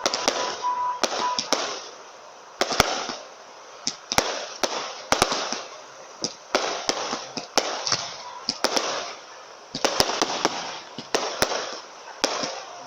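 Fireworks going off: a long run of sharp bangs at uneven intervals, some coming in quick clusters, with a noisy hiss between them.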